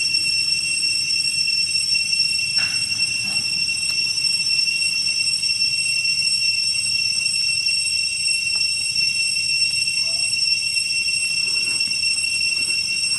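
Steady high-pitched insect drone, several shrill tones held unchanged throughout, with a few faint short sounds.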